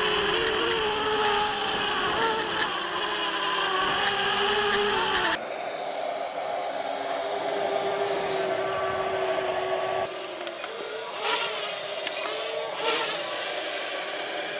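Xinlin X181 Navgator X6 quadcopter's motors and propellers whining close up, the pitch wavering as the throttle changes. After a cut about five seconds in, the drone's hum is fainter and steadier as it flies overhead.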